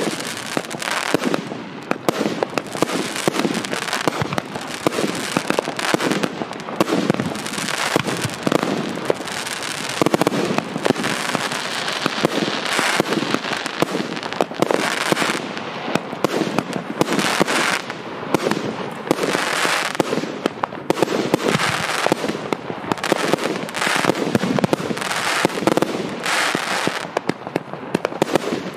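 A 100-shot consumer fireworks cake with 30 and 25 mm tubes firing in a fast, unbroken run. Launch thumps and small shell bursts follow each other several times a second.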